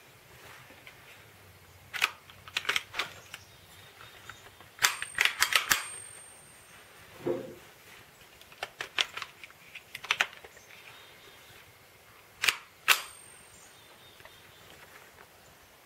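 Ruger SR-22 .22 LR rifle firing single shots from a bench rest, sharp cracks spaced a second or more apart, with lighter mechanical clicks of handling in between. A duller thud sounds about seven seconds in.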